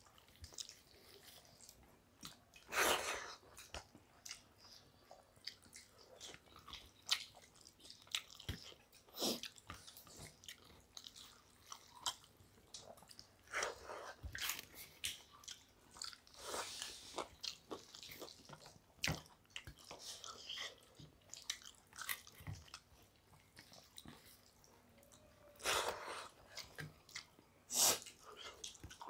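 Close-up sounds of two people eating rice and chicken curry with their hands: irregular wet chewing, lip smacks and small clicks, with a few louder noises about three seconds in and twice near the end.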